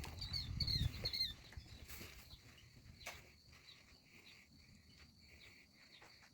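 Faint bird chirps: a quick series of short, sliding chirps in the first second, then a run of short, evenly repeated high calls, with a low rumble of movement or handling under the opening second.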